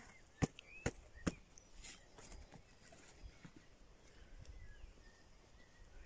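Three sharp knocks in quick succession, about half a second apart, in the first second and a half, then faint, scattered bird chirps.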